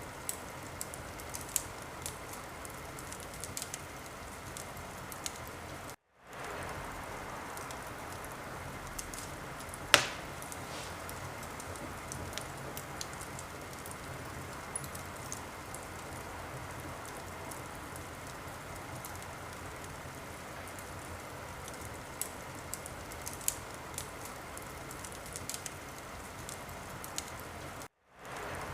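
Wood fire crackling in a fireplace: a steady hiss of burning with scattered sharp crackles and one loud pop about ten seconds in. The sound drops out to silence for a moment twice.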